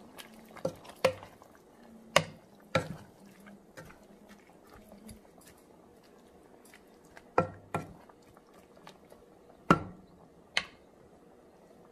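Wooden spoon stirring a pot of mung bean and vegetable soup, knocking against the metal pot with sharp clacks, several in quick pairs, over soft sloshing of the soup.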